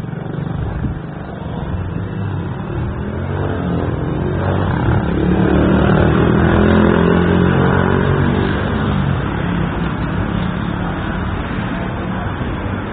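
A motor vehicle's engine passing by, growing louder to a peak about six or seven seconds in and then fading away.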